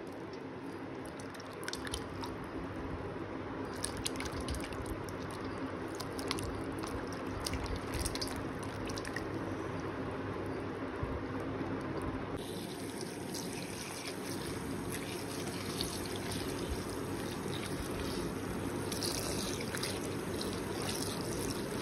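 Water sloshing and splashing as hands rinse bunches of mushrooms in a basin of water, with small drips and clicks throughout.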